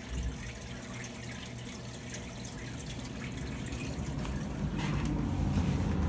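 Heil gas furnace starting up from the thermostat: a low rumble of the blower and air moving through the ductwork, building steadily louder. The freshly replaced blower motor runs smoothly, without the earlier odd noise.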